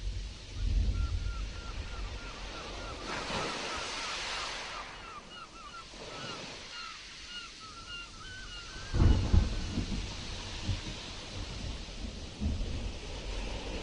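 Stormy sea surf washing steadily, with wind buffeting the microphone in low rumbling gusts about a second in and again about nine seconds in. Through the middle runs a series of short, quick chirps, about two or three a second.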